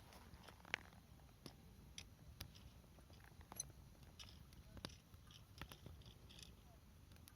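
Wood campfire crackling faintly, with irregular small pops and one sharper snap about three-quarters of a second in.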